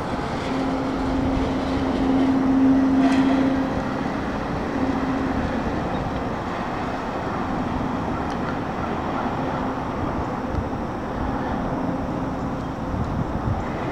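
A Norfolk Southern freight train led by three diesel locomotives passing through the crossing: steady rolling noise of the train on the rails, with a low engine drone that is loudest from about one to four seconds in.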